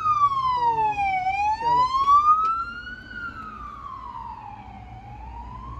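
Ambulance siren wailing, its pitch rising and falling slowly in a long, even cycle; it grows fainter about halfway through.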